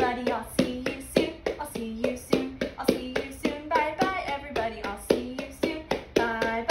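A woman sings a children's song while beating a small drum by hand in a steady rhythm, about three beats a second.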